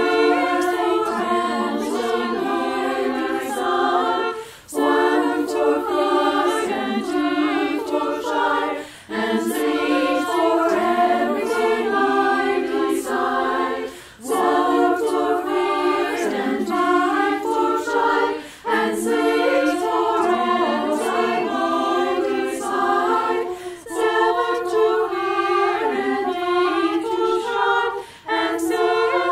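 Women's barbershop chorus singing four-part a cappella harmony. The phrases last about four to five seconds, each broken by a short breath.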